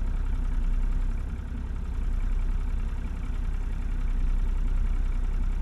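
Boat engine idling steadily, a low even drone.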